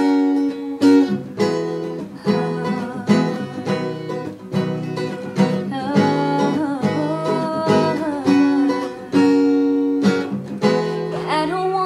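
Acoustic guitar strumming chords as an instrumental break between sung sections; a singing voice comes back in near the end.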